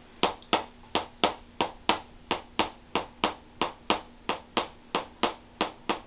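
A red-headed mallet tapping rapidly on a chrome chiropractic adjusting instrument held against the side of the neck, with sharp, even metallic clicks about three a second. This is instrument-assisted chiropractic adjustment of the neck.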